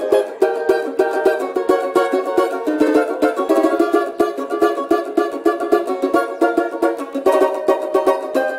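Samba banjo (banjo-cavaquinho) with a pau ferro body, strummed in a quick, continuous samba rhythm with chord changes; this one has a deeper tone.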